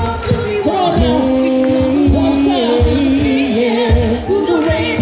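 Live hip-hop performance through a concert sound system: a beat with a heavy kick drum under a sung vocal line with long held notes.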